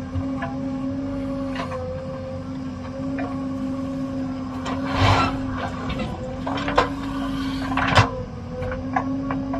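JCB backhoe loader's diesel engine running steadily at a held pitch, with scattered clanks and knocks from the machine working; the loudest knocks come about five and eight seconds in.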